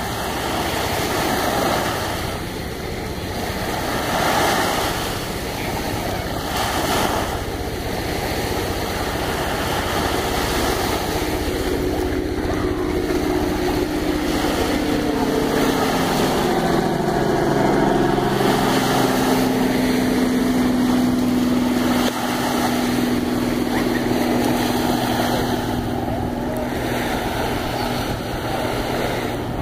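Wind on the microphone over small waves washing onto a sandy shore. From about ten seconds in, a passing motor's steady drone comes in and holds, its pitch settling a little lower.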